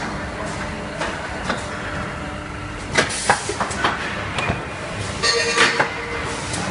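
Conveyor assembly line for ceramic toilets running: a steady mechanical noise with scattered clanks and knocks, a quick run of them about three seconds in and a brief rattle about five seconds in.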